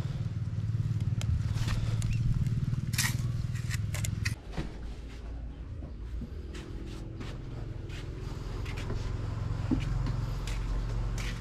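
Footsteps, with scattered knocks and scrapes from things being brushed and handled. Under them runs a low rumble that drops off suddenly about four seconds in, leaving a quieter low hum.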